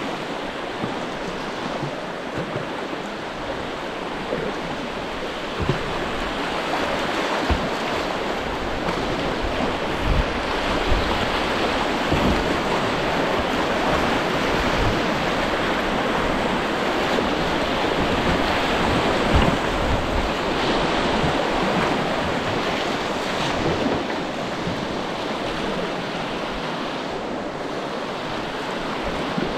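Rushing white water of a shallow river rapid heard from the cockpit of a kayak, with water splashing over the bow and low buffets of wind on the microphone. The rush grows louder through the middle as the boat runs the roughest water.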